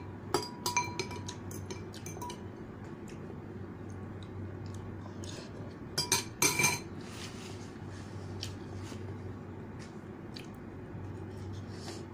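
Metal spoon and fork clinking and scraping against a ceramic bowl of noodles. There are two clusters of sharp, ringing clinks, one at the start and one about six seconds in, with lighter taps in between.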